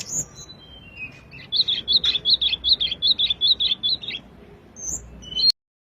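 Song of the small flycatcher sold as 'sulingan': clear, high chirping notes, then a fast run of about a dozen repeated chirps at roughly five a second, then a few more high notes. The sound cuts off abruptly near the end.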